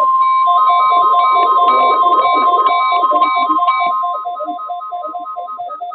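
NOAA Weather Radio warning alarm tone, a steady 1050 Hz tone, sounding together with electronic alert beeping: a rapid two-pitch pulsing of about four beeps a second, plus a slower higher beep that stops about four seconds in. The steady tone cuts off near the end while the rapid beeping goes on.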